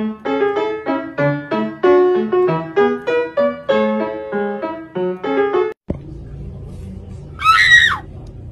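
Piano music, a quick run of short, bright notes, that stops abruptly about six seconds in. After it comes a steady noisy background and, near the end, one short, high-pitched wavering squeal lasting about half a second.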